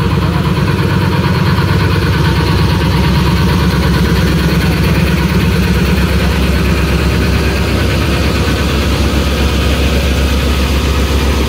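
Diesel engine of a 3000 hp ZCU-30 diesel-electric locomotive running at idle, heard close up alongside its hood. It is a steady, loud, deep pulsing sound that shifts lower about seven seconds in.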